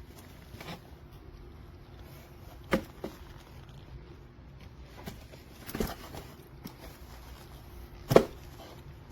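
Boots and their packaging being handled: a few scattered knocks and taps, the loudest near the end.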